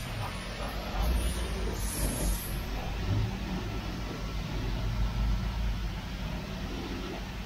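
High-pressure water spray from a self-serve car wash wand hitting a car's wheel and tyre, over a steady low hum.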